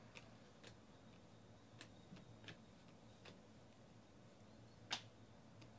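Panini Select football cards being flipped through by hand: faint, irregular clicks as each card is slid off the stack, with one louder click near the end.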